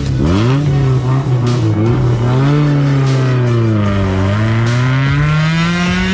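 Honda Civic coupe's engine revving hard as the car pulls away, its pitch climbing and dropping several times, then sagging in a long dip before slowly rising again.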